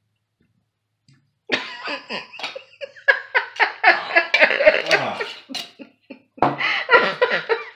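A man coughing and sputtering, with some strained laughter, in reaction to a swallowed shot of raw garlic, lemon and honey tonic. It starts about a second and a half in and comes in two long bouts.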